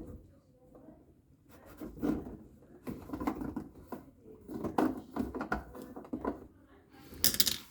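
Dishwasher door parts being handled and pulled off by hand: scattered clicks, knocks and rubbing, with a louder clatter near the end.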